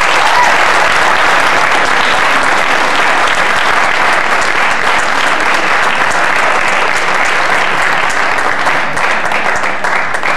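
Audience applauding in a large hall: a dense, steady patter of many hands clapping that thins toward the end, so that single claps stand out.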